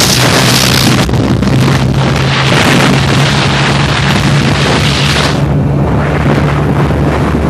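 TVS Apache RTR 180 motorcycle's single-cylinder engine running at high revs near its top speed, a steady engine drone under heavy wind noise on the microphone. The bike is still gaining speed, at about 95 km/h.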